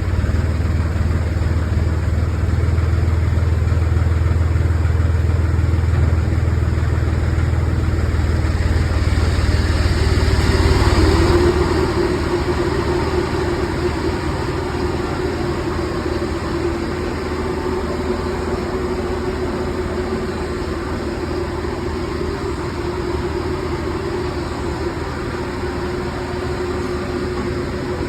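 An engine running steadily with a deep low hum. About ten seconds in, the sound swells briefly, then the low hum drops away and a slightly quieter, higher drone carries on.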